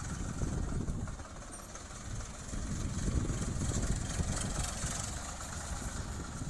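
Ford 3600 tractor's three-cylinder engine running as the tractor is driven around in tight turns, its sound swelling and easing with the throttle.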